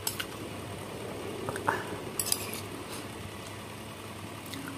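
Metal spoon clinking and scraping against a glass bowl a few times, one clink ringing briefly.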